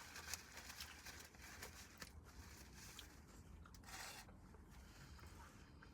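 Near silence: room tone with a few faint clicks and a brief soft rustle about four seconds in.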